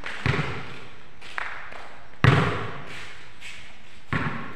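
A basketball thudding on a concrete court: a few separate thuds, the loudest a little past halfway.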